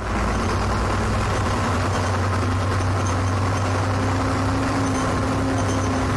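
Bus engine running with a steady low hum and no change in pitch.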